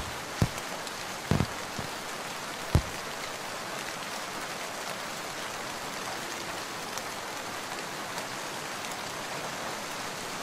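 Steady rain falling, with a handful of dull thuds in the first three seconds.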